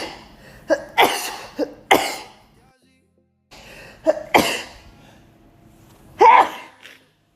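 A woman sneezing in a fit: three sharp sneezes about a second apart, a short break, then two more, the last one loud and voiced.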